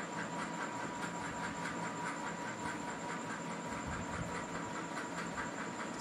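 Steady background hiss and hum with a faint, even pulsing, like room noise from a running appliance; nothing else stands out.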